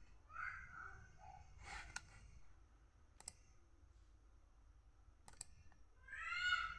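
A few sharp, isolated clicks, about four spread over several seconds, from a laptop being operated while its keyboard is checked on a key-testing page. Near the end a short pitched call is heard.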